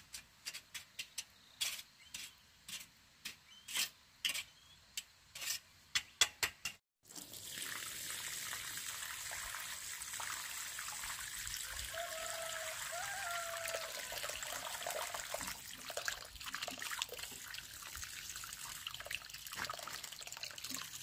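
A metal trowel scraping and tapping on wet cement in a quick series of sharp scrapes. After about seven seconds this gives way to water pouring steadily from a plastic watering can's rose and splashing onto a dry cement-and-gravel mix.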